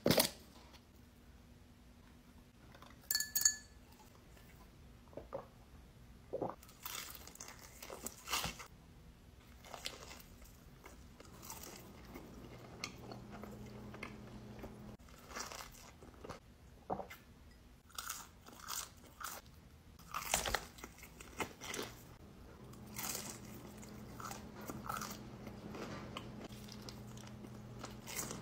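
Close-miked eating sounds: a run of crunchy bites and chewing of crisp fried chicken and a sandwich, in short irregular spurts. A sharp click about three seconds in is the loudest sound.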